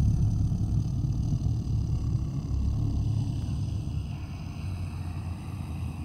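A creepy sound-design effect: a low, rough, continuous rumble with faint steady high tones above it, easing off a little after about four seconds.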